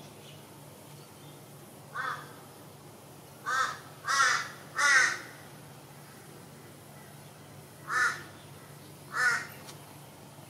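A cat meowing: six short meows, three of them in quick succession in the middle.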